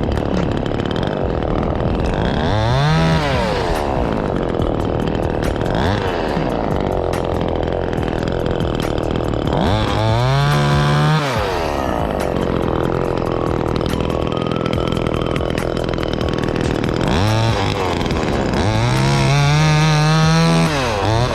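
Chainsaw revving up to full throttle and falling back several times as it cuts limbs, running steadily between cuts. The revs come about 3 seconds in, around 10 seconds, and near the end.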